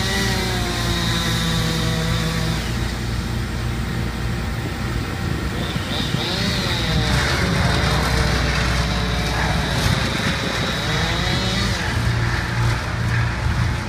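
Heavy machinery engine running steadily, a low drone that holds throughout, with voices over it at times.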